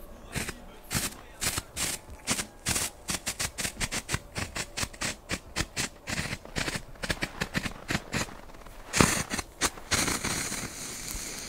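Class 1 ground strobe (Nico Strobe) going off: a fast, irregular string of sharp pops and crackles, several a second. A louder crack comes about nine seconds in, followed by a hissing crackle.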